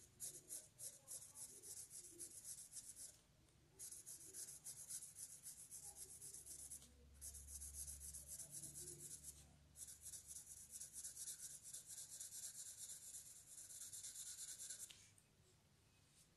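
Pencil shading on paper: fast back-and-forth scratching strokes in four runs with brief pauses, stopping near the end.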